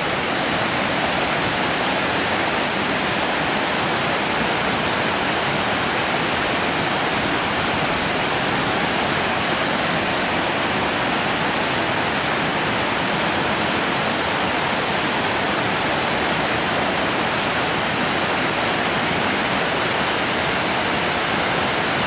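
River water rushing over granite ledges and a small falls at a rocky shoal, a loud, steady, even rush.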